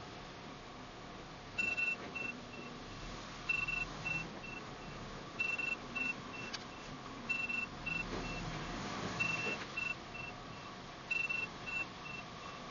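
A vehicle's reversing alarm beeping: a single high beep followed by quickly fading repeats, in groups about every two seconds.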